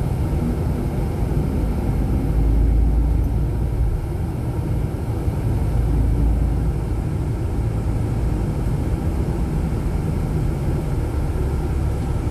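Steady low rumble of outdoor city noise, heaviest in the deepest notes, swelling briefly a couple of seconds in and again near the end.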